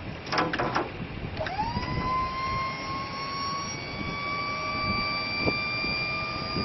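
Truck lift gate's electric hydraulic pump starting up about a second and a half in with a quick rising whine, then running with a steady whine that creeps slowly higher as it lifts and folds the platform. A short metallic rattle comes just before it starts, and a single knock about two-thirds of the way through.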